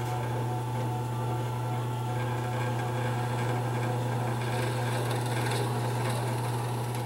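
Drill press running steadily with a low hum while a Forstner bit bores into a mahogany block through a plywood template.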